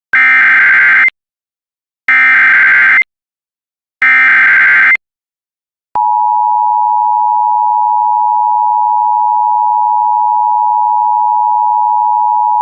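Emergency Alert System SAME header: three loud one-second bursts of warbling data tones about a second apart, then about six seconds in the steady two-tone EAS attention signal starts and holds. Together they mark the start of an emergency alert, here a tornado warning.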